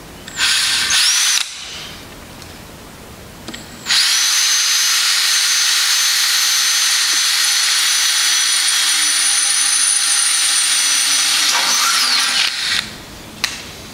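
Electric drill boring a small pilot hole through sheet metal: a brief spin about half a second in, then a long steady high-pitched whine from about four seconds in until it stops shortly before the end, followed by two short blips.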